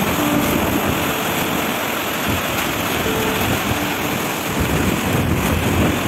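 Steady rush of a tall waterfall falling onto rocks, heard from close to its base.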